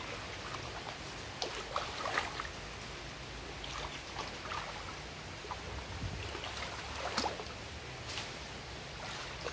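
Water trickling and lapping around a small boat moving along a narrow channel, with scattered light clicks and knocks throughout.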